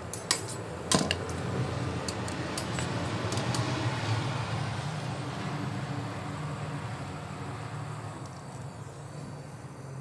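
Two sharp metallic clinks about a second apart, then the steady hiss of a gas brazing torch flame, fading near the end, as the capillary tube is brazed into a refrigerator's filter drier.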